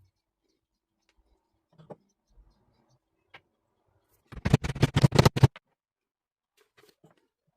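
A few faint taps, then rapid scratching strokes on wood for about a second, a little over halfway through.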